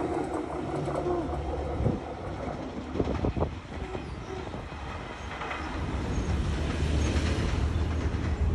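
Diesel locomotive approaching, its engine rumble growing louder in the second half, with a few sharp knocks about three seconds in.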